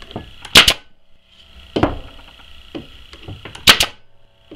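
Nails being driven into the top bar of a wooden beehive frame: three sharp impacts, about a second and then two seconds apart.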